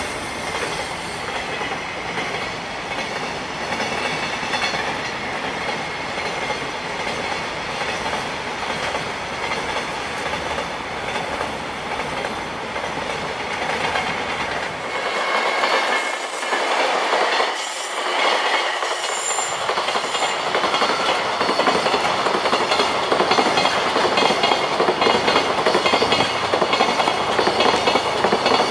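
Freight train hauled by an EH500 'Kintaro' electric locomotive passing at speed, a steady clickety-clack of wagon wheels over the rail joints that grows louder in the last several seconds.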